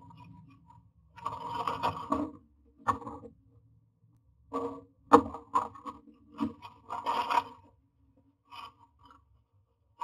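Common myna shifting about inside a wooden nest box and working its dry-grass nest material: irregular bursts of rustling and scraping, with short pauses between them.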